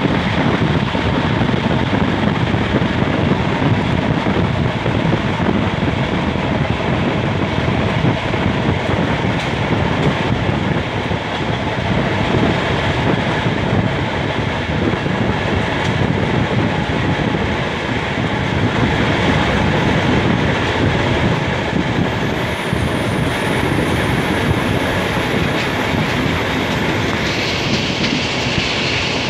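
Diesel-hauled passenger train (Alco RSD-39 locomotive with coaches) heard from on board while running: a steady rumble with the clickety-clack of wheels over the rails. Near the end a higher hiss comes in.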